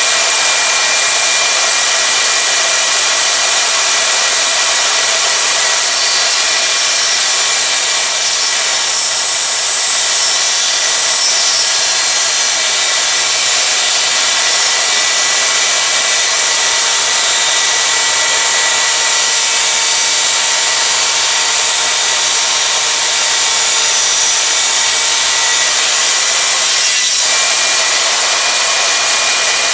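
Miter saw running steadily with a high motor whine while its blade cuts into a wooden board.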